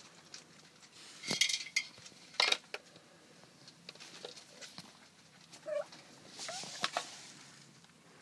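Footsteps crunching and scuffing on a gravel floor in a few short bursts, with scattered light clicks and knocks between them.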